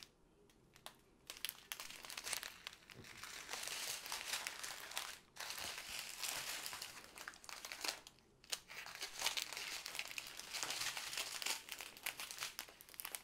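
Small plastic bags of diamond-painting drills crinkling and rustling as they are handled, with brief pauses in the handling about five and eight seconds in.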